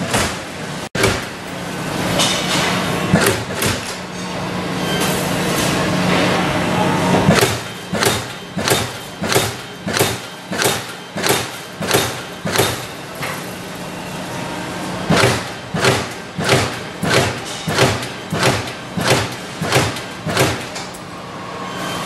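Amada Pega 345 CNC turret punch press at work: a steady machine hum under punching strokes on a steel sheet, a sharp thump at each hit. The hits come in a regular run of about two a second from about a third of the way in, pause briefly, then run again.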